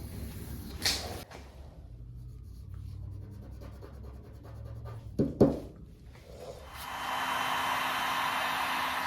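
A couple of sharp knocks, then a steady rushing hiss of air with a low hum underneath, which starts about two seconds before the end.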